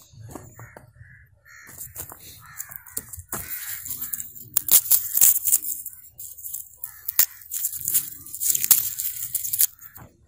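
A garlic bulb being broken apart into cloves by hand, its papery skin crackling with many sharp little snaps. The crackling is loudest in the second half.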